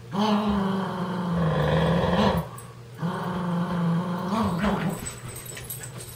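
Dog play-growling during a tug-of-war over a toy: two long, steady growls, each about two seconds, with a short break between them, then it goes quieter.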